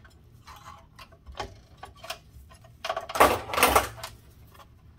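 Hands handling parts inside a metal instrument chassis: scattered small clicks and taps, then a louder rattling, scraping clatter for about a second, about three seconds in.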